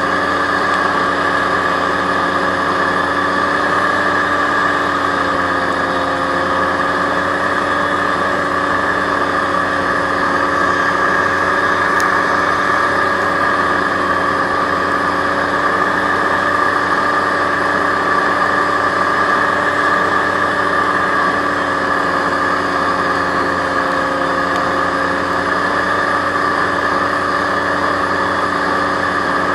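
Aerocruiser SA-1100 hovercraft's engine and propeller running steadily at cruising speed: an even drone holding several steady pitches, shifting only slightly in pitch about six seconds in.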